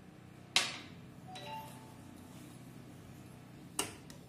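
Two light clinks of kitchenware about three seconds apart, the first followed by a faint brief ring, over a low steady hum.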